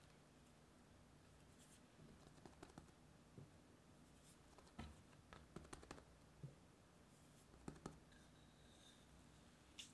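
Faint, scattered taps and soft rubbing of hands pressing a ball of bread dough flat on a work surface and sprinkling dusting flour over it.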